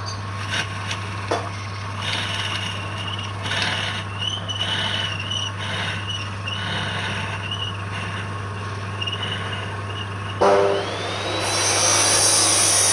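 Wood lathe running with a steady hum while a turning tool scrapes the spinning wood in short passes, giving an on-and-off high squeal. About ten seconds in there is a knock, then a louder hissing machine noise with a whine starts.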